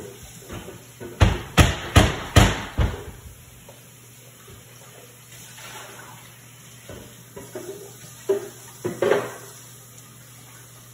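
Kitchen knocks and clatter: a quick run of four or five sharp knocks a little over a second in, then a few more near the end.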